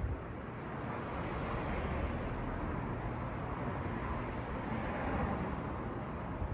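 Steady outdoor background noise, a hum and hiss with no distinct bird calls or knocks.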